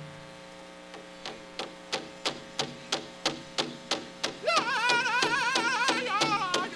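Powwow drum struck in a steady beat of about three strokes a second, starting about a second in and growing louder. About four and a half seconds in, a lead singer comes in with a high, wavering voice over the drum. A faint electrical hum runs underneath.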